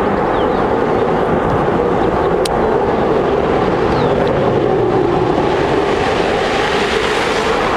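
F-16 fighter jet engine noise after takeoff: a loud, steady roar of jet blast that holds an even level as the jet climbs away.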